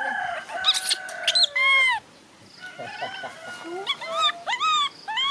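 Baby macaque crying: high drawn-out whining calls, then a string of short cries that rise and fall in pitch near the end.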